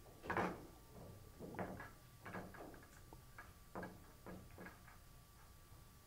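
Pool balls clacking against each other and the rack as they are gathered into a rack for 10-ball: a sharper clack about half a second in, then a string of about ten lighter clicks over the next four seconds.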